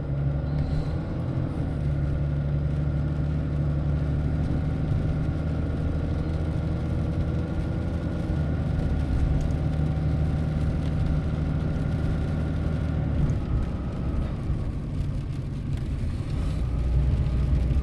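Car engine and road noise heard from inside the cabin while driving, a steady hum with a held pitch that changes and eases about thirteen seconds in.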